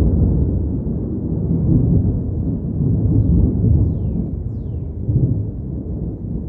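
Long rolling thunder rumble, loudest at the start, swelling again a few times and slowly easing off.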